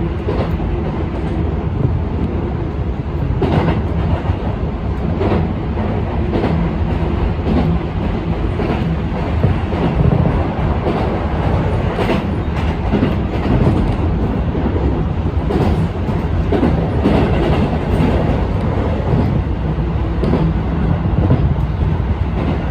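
Electric commuter train running at speed, heard from inside the front car: a steady rumble of wheels on rails, with sharp clacks as the wheels cross rail joints every second or few.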